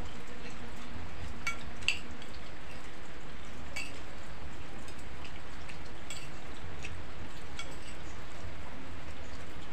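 Steady rain falling, with scattered sharp clinks of spoons against plates as people eat.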